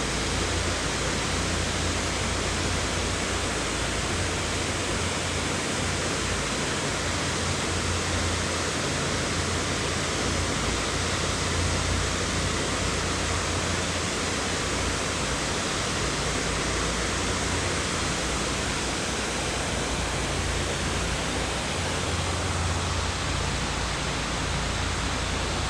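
Steady rush of river water, an even hiss with a low rumble underneath that does not change.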